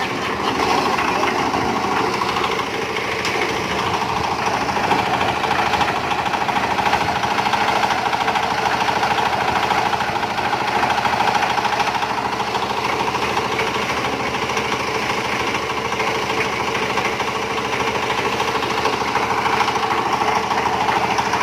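Drum-type concrete mixer of 450–500 litres running steadily under power, its engine and turning drum making a continuous, rapidly pulsing mechanical sound.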